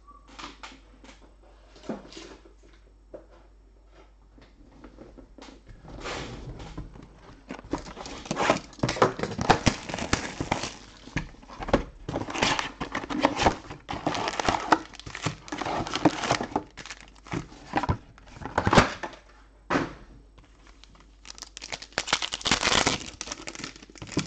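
Crinkling and rustling of the plastic wrapping and foil packs of a box of Panini Select trading cards being unwrapped and handled. It starts with a few faint taps, grows dense about six seconds in, and stops briefly before picking up again near the end.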